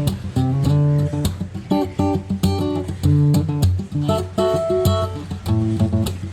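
Background music: strummed acoustic guitar with a steady beat and bass.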